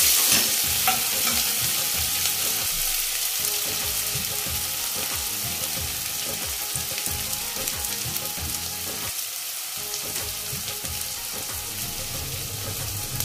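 Chopped onion and green chillies sizzling in hot mustard oil with fenugreek and cumin seeds in a kadhai, the tempering (tadka) for rajma dal. The food is stirred with a steel ladle at first, and the sizzle slowly dies down.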